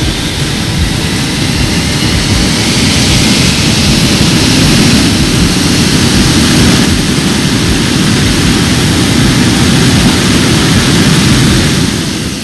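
Handley Page Victor's jet engines running at high power during a ground engine run: a loud, even roar that builds over the first two or three seconds, with a whine rising through it, then eases off near the end.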